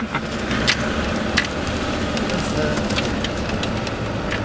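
Inside the cabin of a Land Rover Discovery 2 driving on a rough dirt track: the Td5 five-cylinder diesel engine running steadily under a low rumble of tyre and body noise, with a few sharp clicks.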